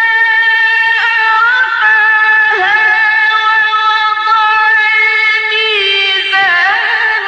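A man's voice chanting Quran recitation in a high, melodic style: one long note held for several seconds, broken by ornamented turns that bend the pitch down and back up, with the last turn near the end.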